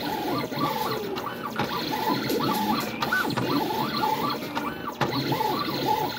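MK1200 cutting plotter's motors whining as the blade carriage and rollers move to contour-cut printed stickers. The whine rises and falls in quick repeated arcs as the cutting head changes speed and direction.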